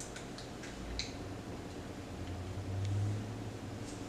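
A few light clicks of small metal parts being handled as the screws on a crossbow quiver's mounting bracket are loosened, most of them in the first second. A low hum swells briefly around three seconds in.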